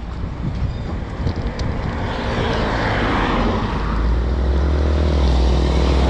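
Wind rushing and buffeting over the camera microphone of a moving road bike, with a motor vehicle passing, its noise swelling about three seconds in. The low rumble of the wind grows heavier near the end.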